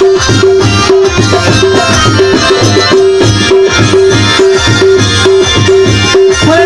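Instrumental passage of a live Bengali qawwali/bhandari song: tabla playing a steady, even rhythm under a keyboard melody, with no singing.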